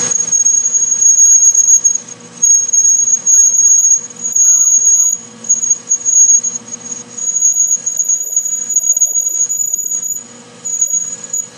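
A 1-inch high-speed steel drill bit cutting into stainless steel turning in a metal lathe under liquid coolant gives a loud, high-pitched steady squeal. The squeal breaks off briefly three or four times and comes back. The lathe's running hum lies underneath.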